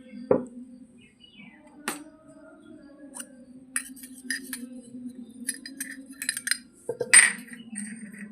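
Small toy kitchen pieces clinking and tapping as they are handled and set down: a few sharp knocks, the loudest about seven seconds in, with a quick run of light ticks in between.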